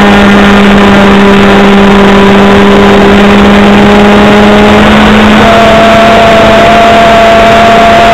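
OS .55AX two-stroke glow engine of a model trainer aircraft running at high throttle in flight, heard from the wing with heavy wind rush over the microphone. It holds a steady high-pitched drone whose note shifts about five seconds in.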